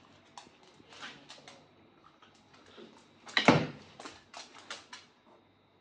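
Scattered taps, scuffs and clicks of a toddler and a Shiba Inu moving about on a laminate floor, with one louder thump about three and a half seconds in, likely the toddler dropping to sit on the floor, followed by a quick run of sharp clicks.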